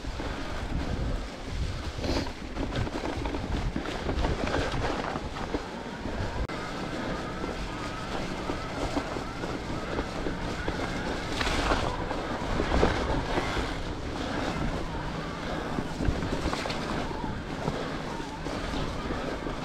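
Riding sounds from a Cube mountain bike on a trail: wind buffeting the microphone and tyres rumbling over the ground, with scattered knocks and rattles from the bike.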